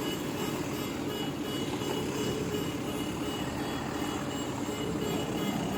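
Heavy engine of a concrete pump vehicle running steadily while it is manoeuvred onto a trailer.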